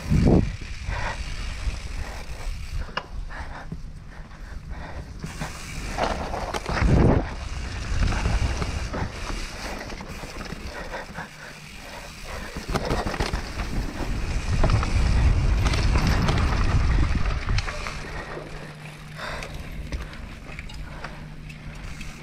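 Propain Tyee 29-inch enduro mountain bike running down a dirt bike-park trail: continuous tyre rumble and rattle over the ground. There are heavy thumps just after the start and again about seven seconds in, and a rougher, louder stretch around the middle.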